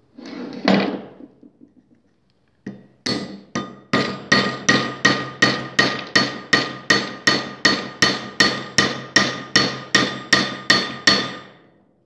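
A hammer tapping steadily, about three blows a second, on a copper rivet end backed by a steel hitch receiver, bradding the rivet into a dome over its burr. Each blow rings briefly. The blows start about three seconds in and stop shortly before the end.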